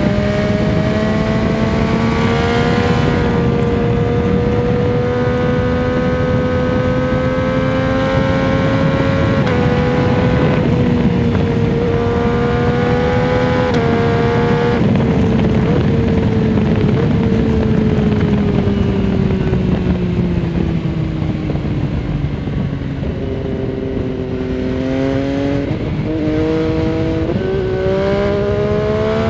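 MV Agusta Dragster 800 RR's three-cylinder engine heard from the rider's seat through a Fresco Trio Corse aftermarket exhaust with its dB-killer fitted, under a steady haze of wind noise. The engine holds a steady pull at speed, winds down for several seconds as the throttle is rolled off, then revs up again through a quick run of upshifts near the end.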